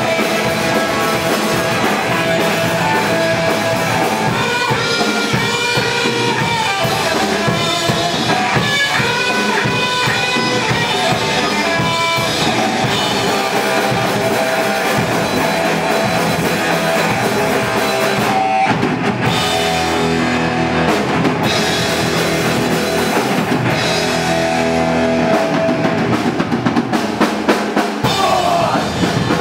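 Fast melodic punk band playing live: electric guitar, bass guitar and a drum kit.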